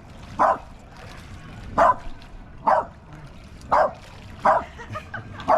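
A dog barking repeatedly: about six short barks, spaced roughly a second apart.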